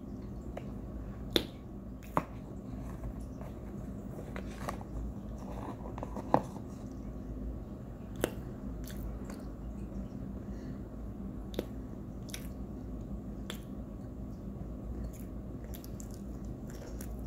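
A person chewing and crunching chunks of cornstarch, with sharp crunches scattered through, the loudest about six seconds in.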